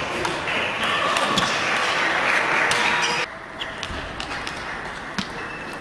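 Table tennis rallies: the ball clicking sharply off bats and table, a hit roughly every half second. For the first three seconds the hits sit over a loud, even noise with brief squeaks. That noise cuts off suddenly about three seconds in, leaving the clicks clear over a quieter hall.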